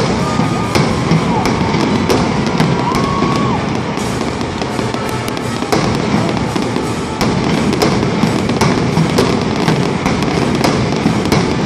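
Fireworks display going off, with many sharp bangs and crackles in quick succession over a continuous rumble. Music plays underneath throughout.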